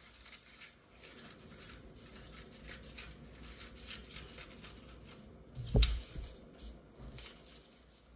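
Scissors snipping construction paper, a run of faint short cuts and paper rustles, as a paper number shape is trimmed. A single louder thump about six seconds in.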